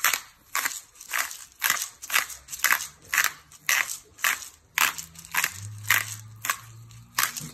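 Hand-held twist grinder grinding seasoning, a crunchy grinding stroke about twice a second, one with each twist.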